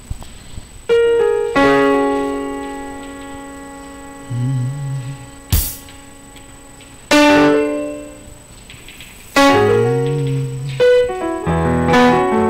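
Keyboard (electric piano sound) playing a few slow chords, each struck and left to ring and fade, with a quicker run of notes near the end. A sharp click about five and a half seconds in.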